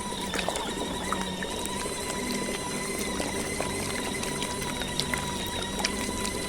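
Portable mini washing machine running its rinse cycle: a steady motor hum with a constant high whine, and faint scattered clicks.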